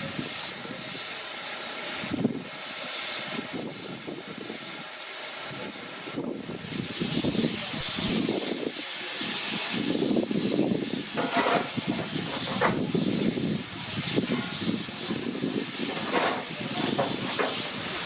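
Steady steam hiss from a standing GWR Manor-class 4-6-0 steam locomotive, No. 7820 Dinmore Manor, with rougher, uneven sound underneath that grows stronger about halfway through.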